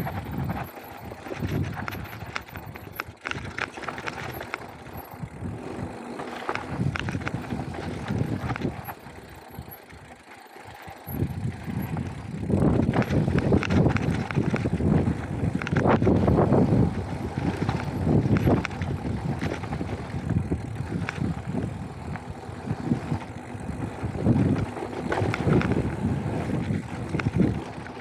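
Mountain bike ridden along a dry dirt trail: tyres rolling over dirt and small stones, with the bike rattling and clicking over bumps. It gets louder and rougher for several seconds around the middle and again near the end.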